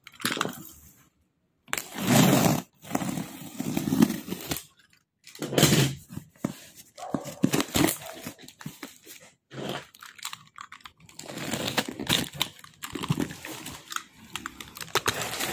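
Cardboard shipping carton sealed with clear packing tape being torn open and handled: irregular ripping, scraping and crinkling of tape and cardboard in short rough bursts.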